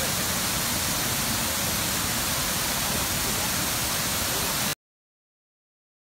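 Waterfall rushing steadily, a dense hiss of falling water that cuts off suddenly near the end.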